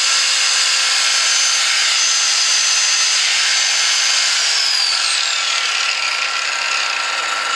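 Angle grinder spinning freely on power from a small 63 cc two-stroke generator, with a steady high whine; about four seconds in it is switched off and its whine falls away as the disc spins down, while the generator's engine keeps running.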